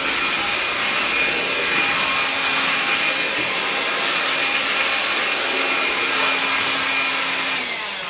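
AEG CX7-1-30EB cordless stick vacuum running steadily with a high whine as its floor nozzle is pushed along the floor. Near the end the whine drops in pitch and fades as the motor winds down.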